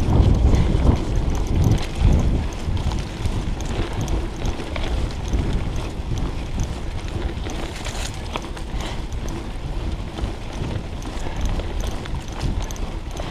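Mountain bike riding a dirt trail, heard from a chest-mounted GoPro: low wind rumble on the microphone with tyre noise and scattered rattles and knocks from the bike over bumps. It is loudest in the first couple of seconds, then steadier.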